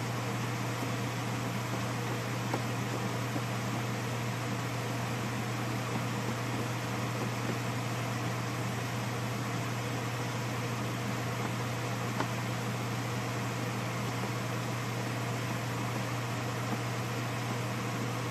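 A fan running: a steady whirring hum over a low, even drone, with a couple of faint clicks.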